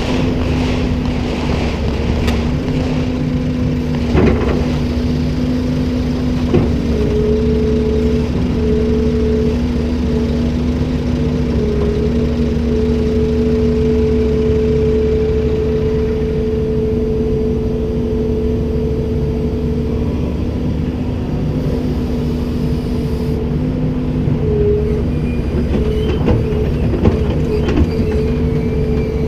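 Komatsu PC290-10 excavator's diesel engine running steadily with a steady whine over its rumble, and a few sharp knocks, one about four seconds in and a cluster near the end.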